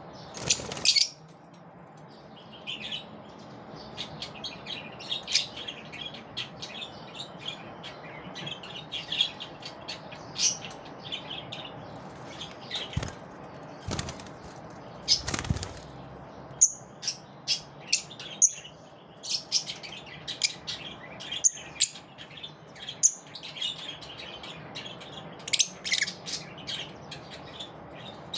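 Lovebirds chirping in many short, high calls, with a few brief bursts of wing flapping.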